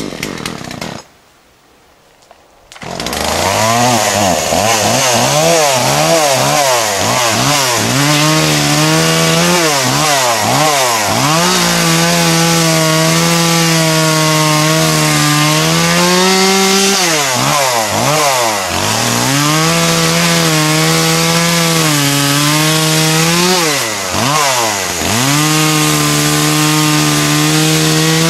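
Chainsaw cutting cedar logs: after a brief burst and a pause of about two seconds, the saw runs loud, revving up and down, then holds a steady lower pitch for a few seconds at a time under load in the cut, rising again as each cut finishes.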